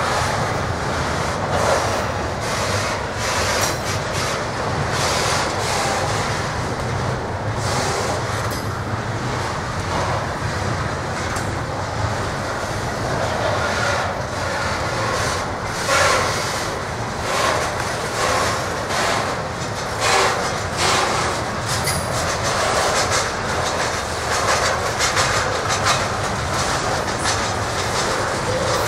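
Double-stack intermodal container train's well cars rolling past close by: a steady rumble of steel wheels on rail, broken by many sharp clicks and clacks as the wheels pass over rail joints.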